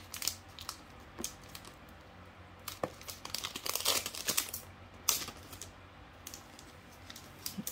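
Foil wrapper of a Pokémon card booster pack crinkling and tearing as it is gripped and ripped open by hand: scattered crackles, with a denser stretch of crinkling about halfway through.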